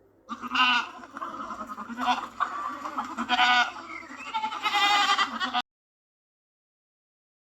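Goats bleating, a series of wavering calls one after another, cutting off suddenly about five and a half seconds in.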